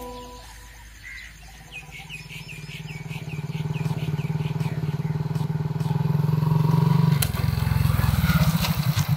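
Motorcycle approaching, its engine growing louder as it comes near. About seven seconds in the throttle closes and the engine drops to a slow, pulsing idle as the bike pulls up and stops.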